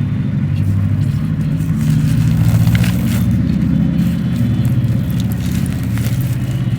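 A steady low rumble dominates, with a few faint crackles of dry handmade clay texture being crumbled by hand.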